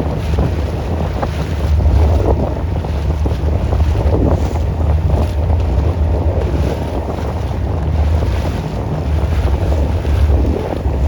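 Wind buffeting the microphone on a moving motorboat, a steady heavy rumble over the sound of the boat running through the water.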